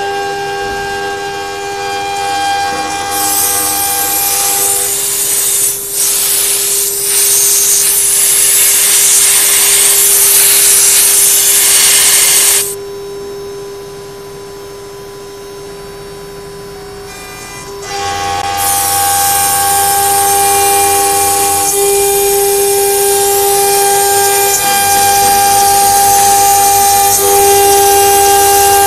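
CNC router spindle running at high speed with an end mill cutting an aluminium plate: a steady high-pitched spindle whine under a loud hissing cutting noise. The cutting noise drops away for about five seconds in the middle, leaving only the whine, then comes back and holds to the end.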